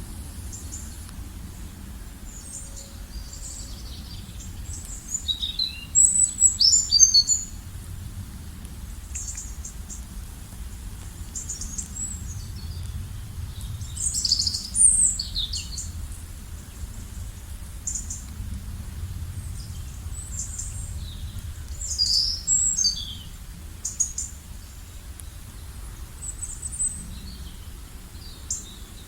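Several small birds chirping and trilling in short high-pitched phrases, over a steady low rumble.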